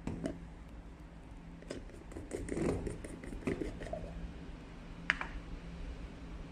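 Handling noises as a mixing cup is lifted out of a centrifugal mixer's chamber: scattered knocks and scrapes, then one sharp click about five seconds in, over a low steady hum.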